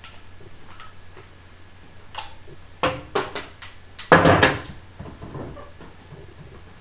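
A few sharp clinks and knocks of a glass beer bottle being handled, some briefly ringing, then a louder half-second clatter just after four seconds in.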